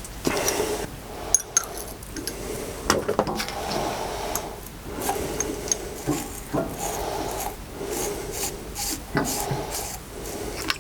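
Repeated rasping, scraping strokes, about eight of them, each under a second long, with a few sharp clicks in between.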